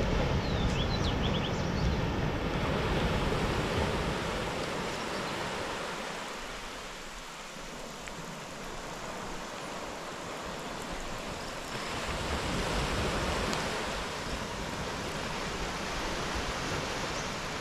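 Ocean surf washing onto a sandy beach: a steady rush of waves that eases slightly midway and swells again, with wind rumbling on the microphone.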